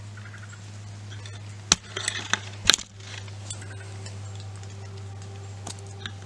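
Camera handling noise: a few sharp clicks and knocks, the loudest about two to three seconds in, as the camera is turned on its arm mount, over a steady low hum.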